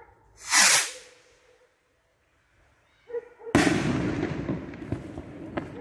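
Hand-launched firework rocket whooshing away with a hiss that falls in pitch, then about three seconds later its charge bursting in a loud bang that rolls on and slowly fades.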